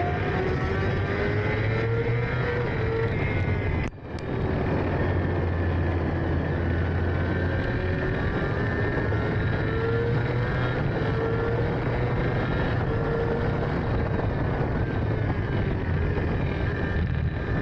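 Racing sidecar outfit's engine running hard at speed, its note slowly rising and falling with the throttle, under a haze of rushing air. The sound drops out sharply for a moment about four seconds in, then picks up again.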